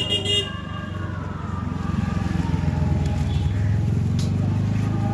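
Motorcycle engine running close by, its low pulsing note growing louder over the first few seconds and then holding steady. A short high-pitched beep sounds right at the start.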